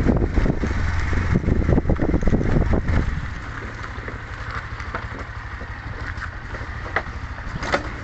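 Motorcycle engine running at low speed on a rough, rocky dirt track, loud and rough with clattering for about the first three seconds, then settling to a steady low running. Two sharp clicks come near the end.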